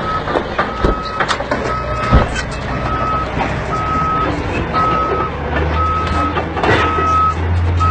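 Reversing alarm of a heavy earth-moving machine beeping about once a second, over a large boulder tumbling down a rocky slope: two sharp knocks in the first couple of seconds as it strikes rock, then a low rumble that builds near the end.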